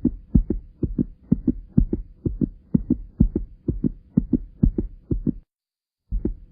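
Human heartbeat, a quick steady run of paired lub-dub thumps about twice a second. It breaks off about five seconds in and starts again after a brief silence.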